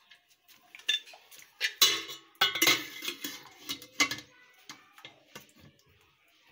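Stainless-steel pressure cooker lid being set on the pot and locked shut: metal scraping and clanking with a few sharp clicks, loudest in the middle, then quiet.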